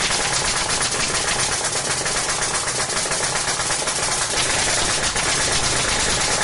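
Nail gun firing in a rapid, unbroken stream of shots.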